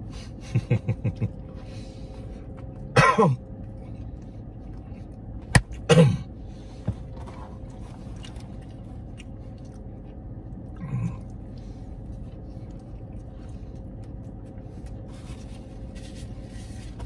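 A man eating, with short throat noises between mouthfuls. A quick run of four short grunts comes about half a second in, then two loud coughs about three and six seconds in, the second just after a sharp click, and a softer grunt near eleven seconds. A steady low hum runs underneath.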